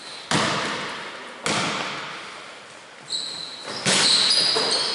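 Basketball bouncing twice on a wooden gym floor about a second apart, each bang echoing through the hall. Near the end, sneakers squeak and there is a louder bang as the ball reaches the rim.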